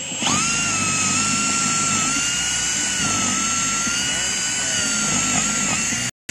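Cordless drill motor spinning up and running at speed with a steady high whine, drilling down into asphalt roof shingles, its pitch dipping slightly as the bit loads. It cuts off suddenly near the end.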